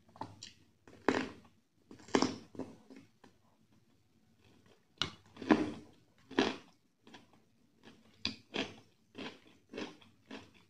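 Close-miked eating: crunchy bites of a raw vegetable and open-mouthed chewing, heard as a string of short wet smacks that come quicker, about twice a second, near the end.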